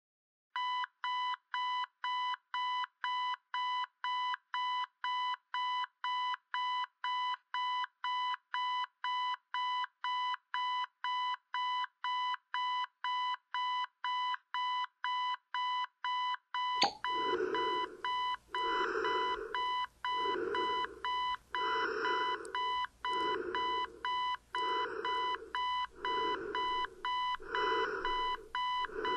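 General Electric digital clock radio's alarm beeping, an even, rapid series of high electronic beeps at about two and a half a second. About two-thirds through, a click is followed by a second, lower pulsing sound roughly every second and a half beneath the continuing beeps.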